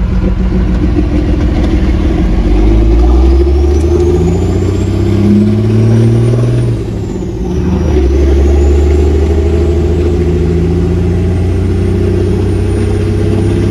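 1969 Chevrolet C50 dump truck's engine heard from inside the cab, pulling as the truck accelerates and rising in pitch, dropping off briefly for a gear change about seven seconds in, then running steady under load.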